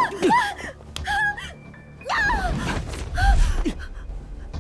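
A woman's short, sharp cries of distress, several in a row about a second apart, over tense background music that swells low near the middle.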